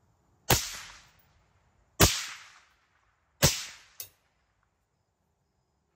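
Three suppressed rifle shots about a second and a half apart from an 11.5-inch carbine fitted with a DDC Enticer S stainless steel suppressor. Each is a sharp crack with a short fading tail. A shorter, fainter crack follows just after the third shot.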